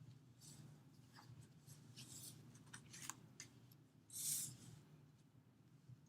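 Faint short scratching strokes of a drawing tool on paper, with one longer, louder stroke about four seconds in, over a low steady room hum.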